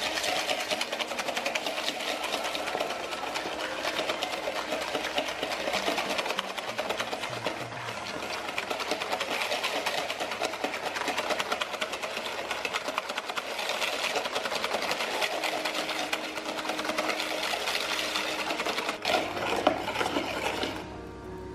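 Fast, continuous whisking in a bowl, a steady rapid clatter that stops suddenly near the end.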